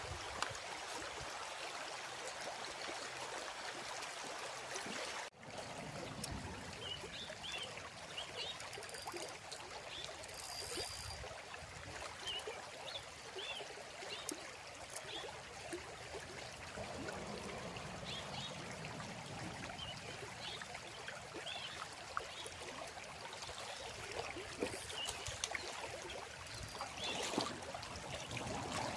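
Water running steadily, a continuous trickling rush, with faint high chirps scattered through the middle.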